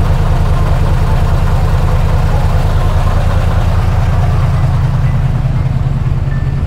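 Heavy diesel truck engines, a Hino and an Isuzu FXZ360, idling side by side with a deep, steady, pulsing throb.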